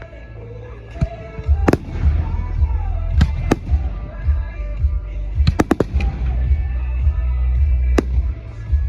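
Fireworks shells bursting: sharp bangs a second or two apart, with a quick run of about four near the middle, over a low booming rumble. Music plays through loudspeakers throughout, as part of the pyromusical.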